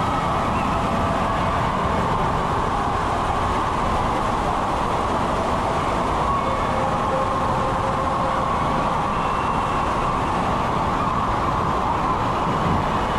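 Steady loud rushing and churning of water in an indoor water park's slide splash pool, echoing through the hall.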